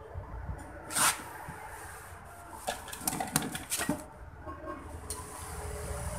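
Handling noises from taking apart a plastic stand-fan base: a sharp knock about a second in, then a run of smaller clicks and knocks.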